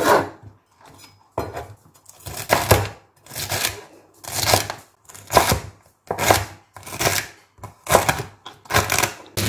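Large kitchen knife chopping celery stalks on a plastic cutting board: a crisp crunch and knock about once a second.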